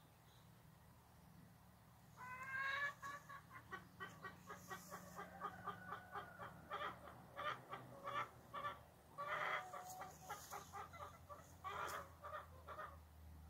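Chickens clucking: after about two seconds of quiet, a long run of quick, repeated pitched calls, with louder outbursts near the start, the middle and near the end.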